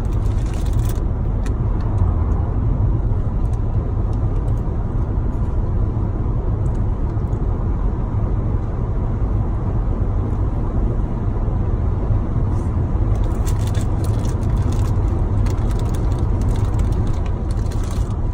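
Car cabin noise while driving: a steady low rumble of the road and engine.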